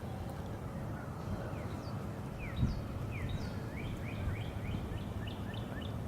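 Wild birds singing outdoors: a run of short, quick whistled notes, some sliding down and some up, that come faster toward the end, over a low steady outdoor rumble.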